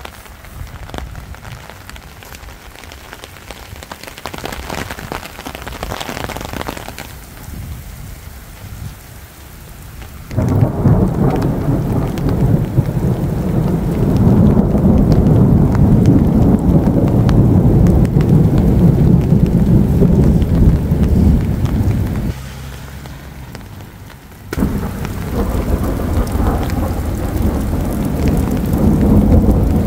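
Heavy rain pouring down during a thunderstorm. Thunder rumbles loud and low from about a third of the way in, cuts off abruptly for a couple of seconds, then comes back to the end.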